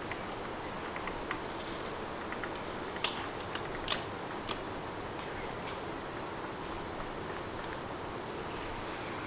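Steady rain hiss with small birds chirping, a series of short high rising chirps, and a few sharp ticks in the middle.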